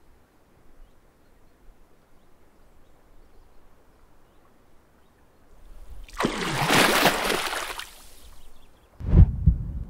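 A rush of water or bubbles swells up about six seconds in and dies away after about two seconds. Near the end it is followed by a few deep, heavy thuds.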